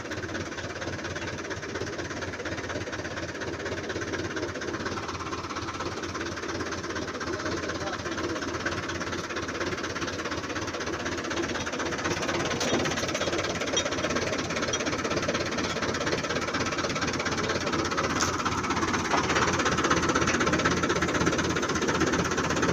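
Farm tractor's diesel engine running steadily at low speed, close by, with a fast even beat; it grows gradually louder towards the end.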